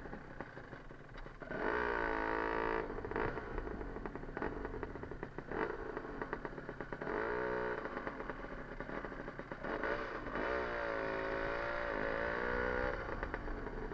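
Two-stroke single-cylinder engine of a Cagiva Mito 125 motorcycle riding at low speed, its revs rising and falling in three surges, around two, seven and eleven seconds in.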